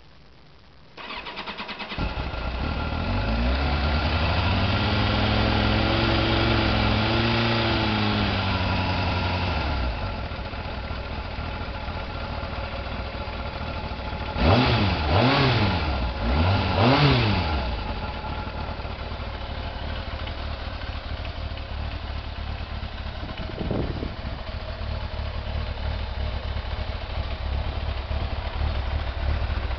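Kawasaki ZZR motorcycle engine starting up about a second in, running at a raised idle that rises and falls back over several seconds, then revved twice in quick succession and left idling steadily, with one small blip of the throttle near the end.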